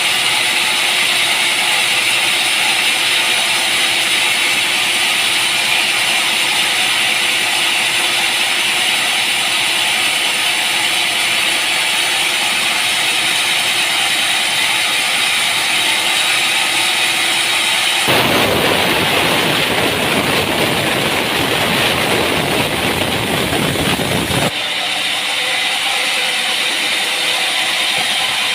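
Sawmill machinery running steadily, with a harsh, noisy stretch of about six seconds in the second half that stops abruptly.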